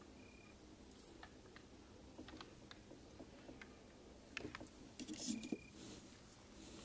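Faint scattered small clicks and rustles over a quiet background, busier and louder from about four seconds in. A short, high, steady tone sounds twice, near the start and about five seconds in.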